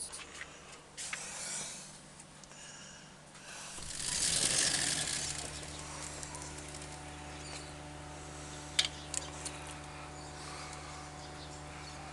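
A sliding glass patio door opens with a swelling hiss about four seconds in. After that a steady low hum comes from outside, with a few sharp clicks near the end.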